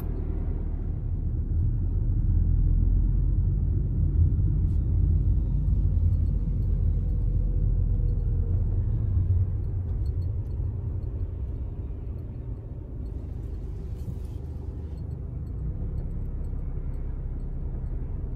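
Low, steady rumble of a car's engine and road noise heard from inside the cabin while creeping along in heavy traffic.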